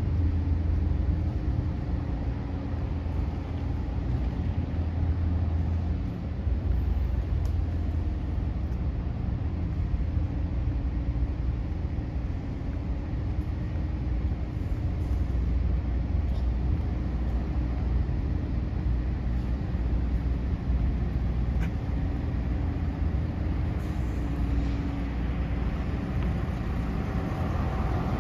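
Wind rumbling on a phone microphone over a steady low engine hum.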